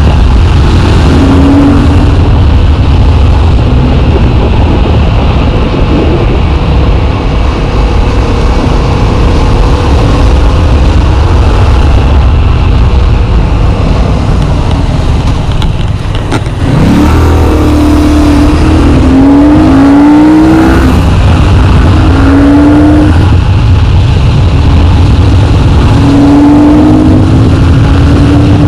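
Yamaha MT-07 parallel-twin engine running at road speed, heard through heavy wind noise on the rider's chest-mounted camera. Just past halfway the sound dips briefly, then the engine pulls up in several short rising sweeps as the throttle opens.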